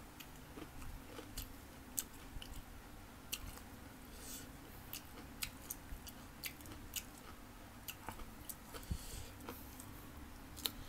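A person chewing and biting crisp green mango: scattered small crunches and clicks from the mouth.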